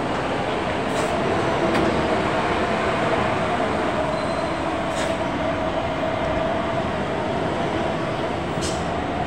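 Heavy Hino tanker truck's diesel engine running at low speed through a tight hairpin turn: a steady drone with a held whining tone. A few short, sharp high ticks sound over it.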